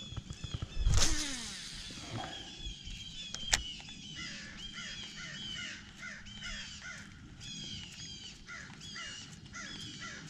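A baitcasting cast about a second in, a brief whir falling in pitch. It is followed by a fishing reel being cranked, giving a steady run of short repeated squeaks, two to three a second, which the anglers find annoying.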